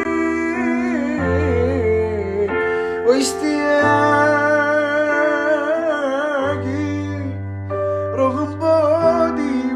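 A man singing a slow, ornamented Arabic tarab melody without clear words, his held notes wavering, over sustained keyboard chords and low bass notes. A single sharp click about three seconds in.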